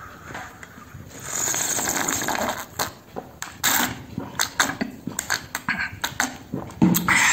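Soup sipped straight from the rim of a bowl: a long slurp about a second in, then a run of swallows and wet mouth clicks, with another loud slurp near the end.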